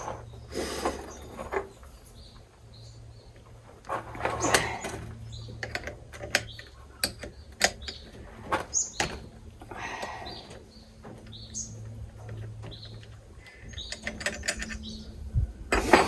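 Scattered sharp clicks and knocks of a cordless die grinder and its bits being handled, with birds chirping in the background.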